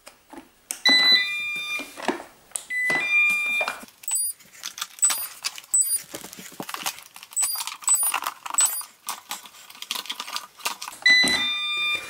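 Eufy RoboVac robot vacuum cleaners being switched on one after another, each powering up with a short electronic startup tune of stepped beeps; three such tunes are heard, about a second in, about three seconds in and near the end. In between come a run of short high pips and clicks from handling the units.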